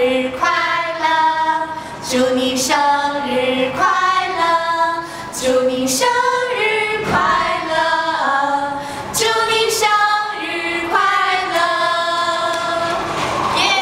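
A group of women singing a song together in unison, moving from note to note with each note held for about half a second to a second.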